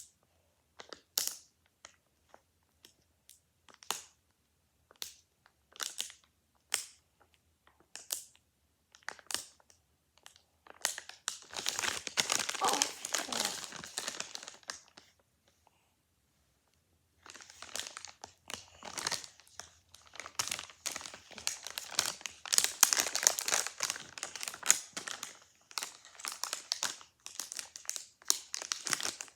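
Plastic packaging crinkling and tearing as it is worked at by hand while someone struggles to open it. It starts as separate crackles about a second apart and becomes long stretches of dense crinkling, with a short pause about halfway.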